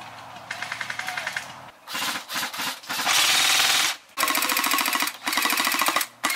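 Airsoft M4-style rifles firing a series of rapid full-auto bursts, each a fast even rattle; a quieter burst comes first, and the longest, loudest burst comes about three seconds in.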